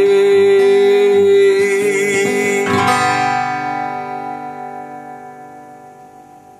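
A man's voice holding the song's last sung note over acoustic guitar, then a final strummed chord on the acoustic guitar about three seconds in that rings out and slowly fades away.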